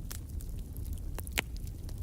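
Wood fire in a fireplace crackling: irregular sharp pops and snaps over a steady low rumble, with one louder snap about two-thirds of the way in.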